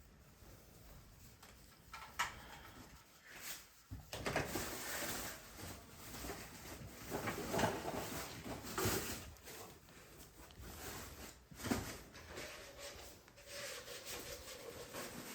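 Close, irregular rustling and rubbing with a few light knocks, the sound of a small dog wriggling and moving while being held and handled.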